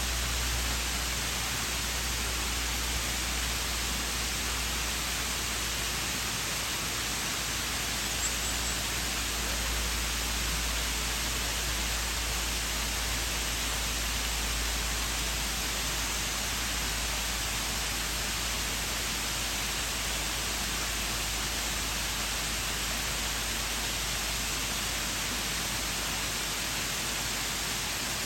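Waterfall: the steady, even rush of water falling and splashing onto rocks, with a faint low rumble beneath.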